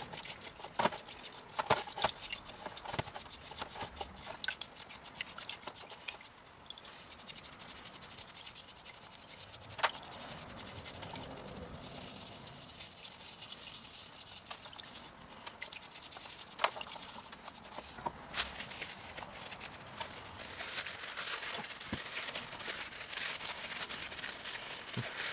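Scattered light clicks and knocks of the turbocharger's metal variable-geometry vane parts being handled, with soft rubbing and swishing as they are worked in paint thinner; the rubbing grows denser near the end.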